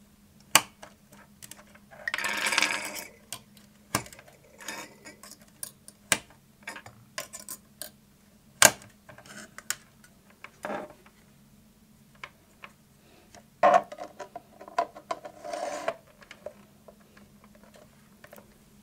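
Geiger counter tubes being pressed into metal spring clips on a getinax circuit board by hand, making scattered sharp clicks and snaps, with two longer stretches of rattling and rubbing handling noise.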